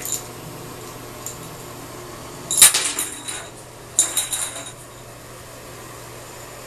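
A small toy skittering and clattering across an empty bathtub as a cat bats it: two bursts of quick rattling clicks, about two and a half and four seconds in, with a couple of faint ticks before.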